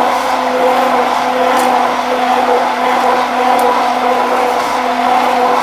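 Hand-held immersion blender motor running at a steady pitch, its blade submerged in a tall beaker of oil and egg as it emulsifies homemade mayonnaise.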